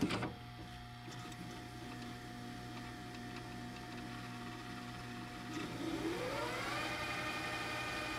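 A few sharp clicks, then a steady sound-design drone: a low hum under a constant thin tone. About six seconds in, a cluster of tones glides upward and holds at a higher, brighter pitch.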